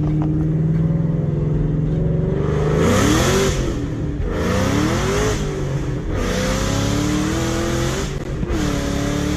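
Car engine running loudly, steady for the first few seconds, then revving and accelerating, its pitch rising and dropping back several times.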